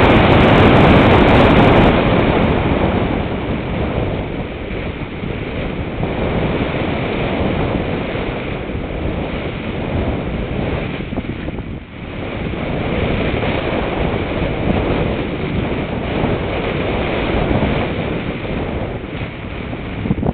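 Rushing wind noise on the onboard camera's microphone of a model glider in flight, loudest for the first couple of seconds and then easing as it slows, with a steady high whine running underneath.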